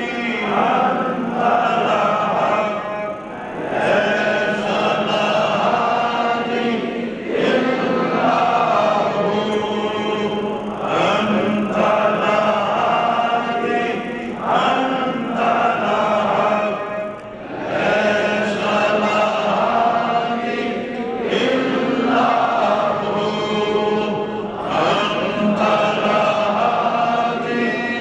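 A group of men's voices chanting together in repeated phrases about three to four seconds long, each followed by a brief pause; devotional chanting.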